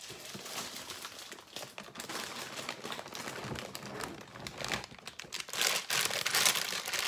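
Clear plastic LEGO parts bags crinkling and rustling as they are handled, with many small crackles; the crinkling grows louder near the end.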